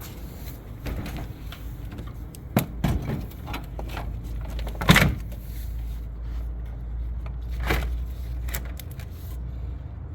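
A few sharp knocks and clunks, the loudest about five seconds in, over a low steady rumble.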